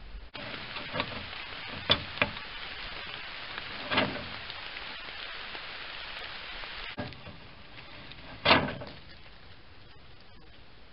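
Steady hiss from a trail camera's microphone at night. A handful of sharp clicks and knocks break it, the loudest about eight and a half seconds in.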